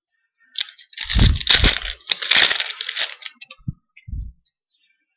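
Foil trading-card pack wrapper crinkling and tearing open for about three seconds, then two soft low thumps as it is handled.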